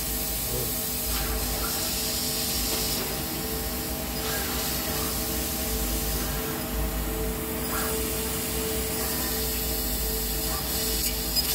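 Fiber laser cutter cutting sheet steel: a steady hiss of assist gas jetting from the cutting head, over a constant machine hum. The hiss eases for a moment a little past the middle.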